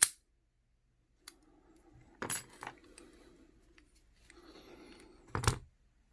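Scattered metallic clicks and clinks of a brass Master Lock No. 160 padlock being handled and worked with lock picks. There is a sharp click at the very start and a louder clack near the end.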